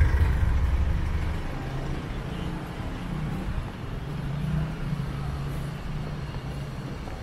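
A motor vehicle's engine running: a low rumble, loudest in the first second or so, that eases into a steady low hum.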